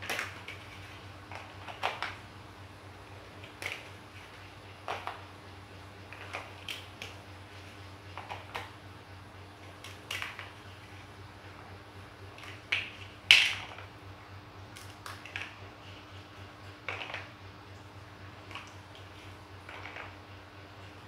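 Large plastic building blocks clicking and knocking as they are handled and pressed together, with a sharp click every second or so. The loudest click comes about two-thirds of the way through. A faint steady hum runs underneath.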